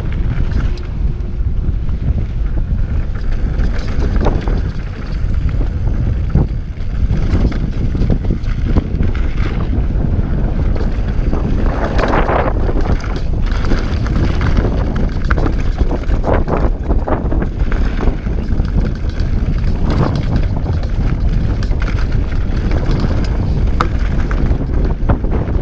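Wind rushing over the camera microphone and mountain-bike tyres rolling fast over dirt and loose gravel on a downhill descent. Scattered clicks and knocks from the bike rattling over rocks and bumps run through it.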